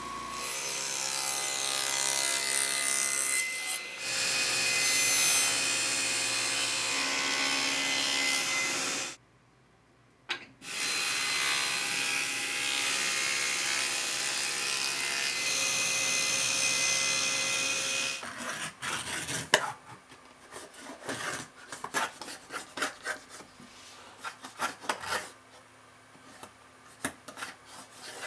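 Woodworking machines working thermally modified ash: a drum sander runs steadily for about nine seconds, then after a short pause a table saw cuts for about seven seconds. The last ten seconds are irregular short scraping strokes of a small hand plane cutting a groove.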